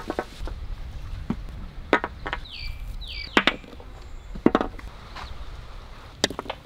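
Jackfruit seeds and bulbs being dropped by hand onto a steel plate, making a string of irregular sharp taps and clicks.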